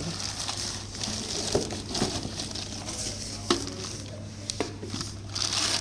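Packaging handled as a mixer grinder's motor base is taken out of its box: plastic wrapping rustling, with a few sharp knocks.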